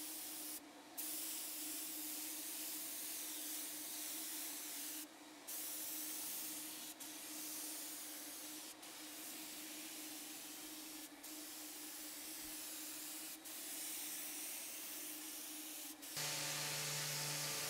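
HVLP spray gun driven by an Apollo Pro 5 LE five-stage turbine, spraying primer: a steady airy hiss over a faint steady hum, briefly breaking off several times between passes. Near the end it gives way to an orbital sander running.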